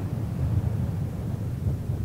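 Deep, rumbling mountain wind that swells and eases in uneven gusts.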